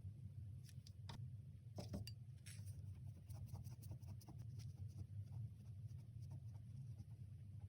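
Faint scratching strokes and small ticks of nail-care tools working at fingernails, over a steady low hum.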